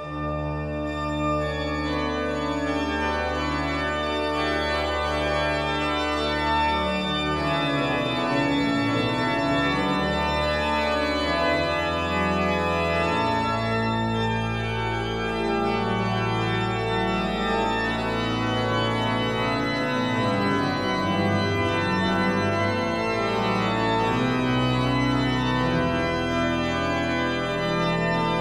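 Organ music: sustained chords held over long, slowly changing bass notes.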